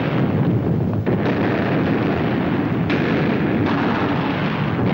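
Continuous din of cannon fire and explosions from an old film's battle soundtrack, a dense, steady noise without separate shots, changing abruptly in tone a few times.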